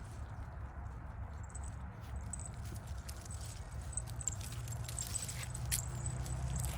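Scattered light rustles and clicks of puppies' paws moving over dry leaves and acorns, over a steady low rumble.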